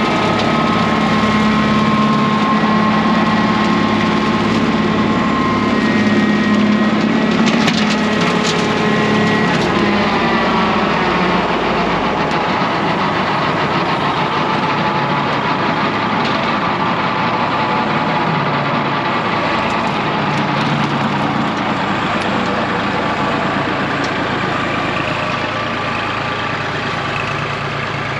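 Kubota compact tractor's diesel engine running under load while its rear rotary cutter chops through thick weeds and brush. A run of sharp cracks and snaps comes about eight seconds in, and the engine pitch sags briefly a couple of seconds later as it bogs in the heavy growth.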